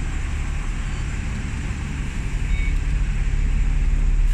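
Double-decker bus engine running with a steady low hum, slowly getting louder in the second half.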